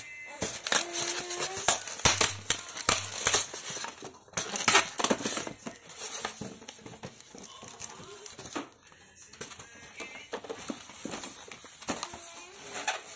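Toy packaging being handled by hand: a foam packing insert and plastic wrapping rustling and crinkling, with irregular clicks and scrapes, louder in the first half.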